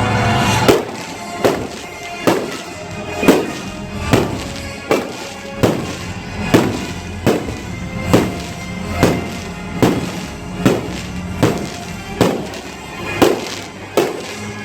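Fireworks going off in a steady, evenly spaced series of bangs, about one every second, each with a short ringing tail, over music playing along with the show.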